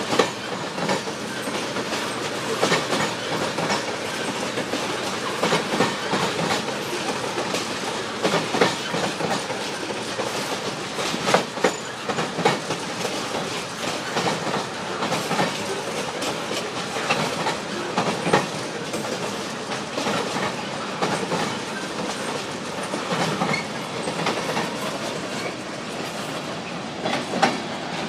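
Freight cars rolling across a short steel railroad bridge: a steady rumble of wheels on rail with an uneven run of sharp clicks as the wheels pass over the rail joints.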